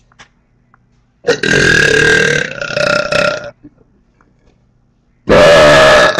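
Two loud, forced burps in turn at a burping contest: the first is long, about two seconds, and changes pitch partway through; the second, about a second long, starts near the end.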